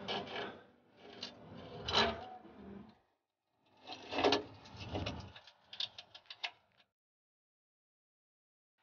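Metal clanks, scrapes and a few quick clicks from hand tools and driveline parts being handled under a pickup truck, coming in short irregular bursts.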